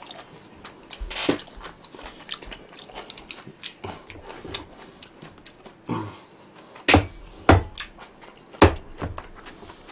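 Eating at a table: chewing with small clicks of chopsticks and tableware, then three sharp knocks in the second half as a plate and chopsticks are handled.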